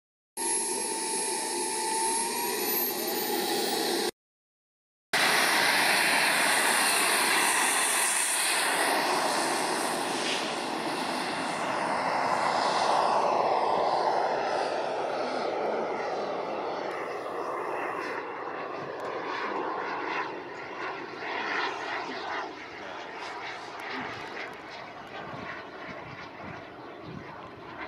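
Turbine of a radio-controlled model jet: first a high whine rising in pitch, then, after a sudden cut about four seconds in, the loud rushing noise of the jet flying past. The pitch falls as it passes and the sound slowly fades away.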